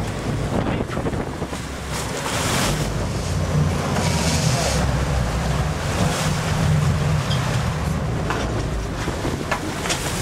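Boat engine running steadily under rushing, splashing sea water, with wind buffeting the microphone; the water and wind noise swells a couple of times.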